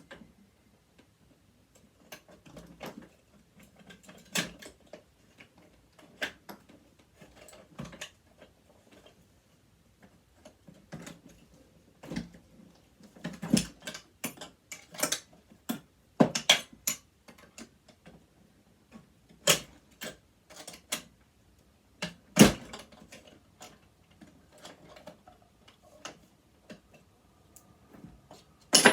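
Irregular clicks, taps and knocks of tools and small metal parts being handled while a sewing machine is taken apart, with a few sharper knocks among many lighter ones.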